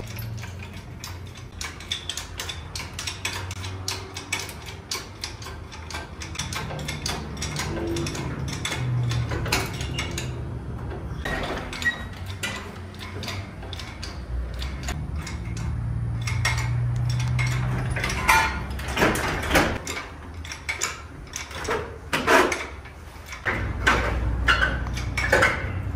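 Metal hand tools and engine parts clinking and clattering at irregular intervals, with a low hum coming and going underneath.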